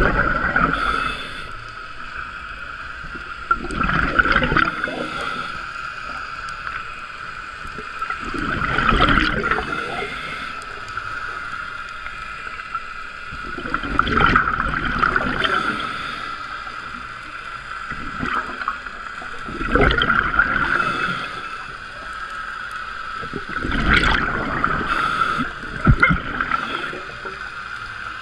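Scuba diver breathing through a regulator: a gurgling rush of exhaled bubbles about every five seconds, with a steady high tone underneath.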